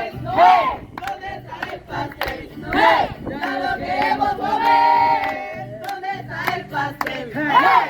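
A group of people shouting and cheering together, many voices overlapping with loud rising and falling shouts. About halfway through, one voice holds a long, steady call.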